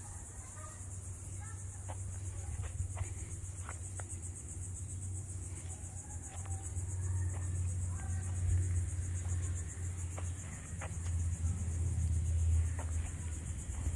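Steady, high-pitched insect chorus with a fast pulse, over a low rumble that grows louder in the second half, with scattered light clicks.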